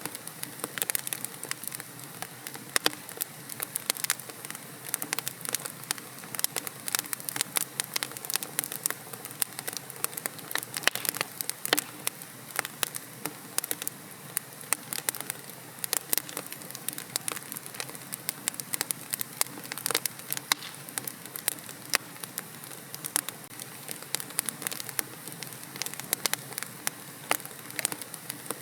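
Wood fire burning in a fireplace: logs crackling with many sharp, irregular pops and snaps over a steady low hiss.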